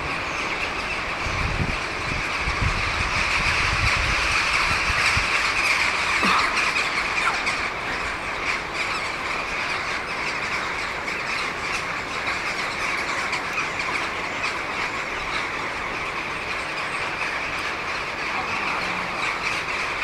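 A large flock of crows calling all at once, a dense, continuous din of many overlapping caws. Wind buffets the microphone in the first few seconds.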